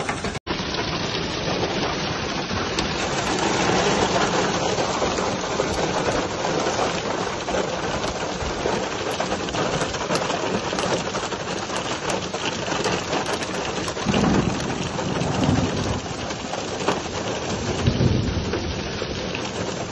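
Heavy hailstorm: hailstones and rain pelting open desert ground, a dense steady hiss scattered with many small sharp ticks of hail striking.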